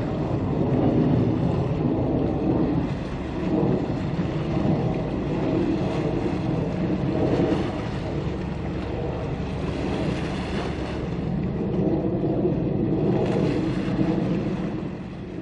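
Wind buffeting the microphone over a steady low rumble, easing off near the end.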